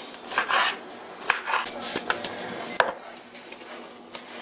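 Food-prep noises: a knife scraping and cutting on a cutting board in a few short strokes, then three sharp clicks about two-thirds of a second apart. It softens near the end to the quieter sound of hands working ground-meat mixture in a steel pot.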